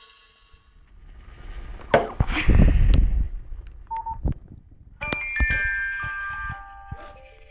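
Nokia 515 mobile phone: rubbing and knocks from the phone being handled, the loudest part, then a short beep about four seconds in. About five seconds in, a new ringtone starts on the phone's loudspeaker as a chime-like melody of ringing notes.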